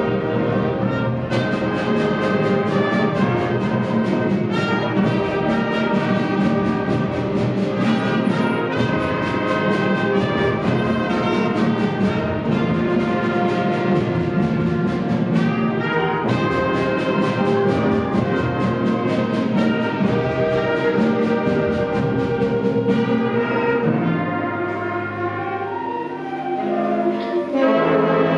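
Middle school concert band playing, with brass to the fore over a steady percussion beat. About 24 seconds in, the full band drops back to low held notes, then comes back in loudly near the end.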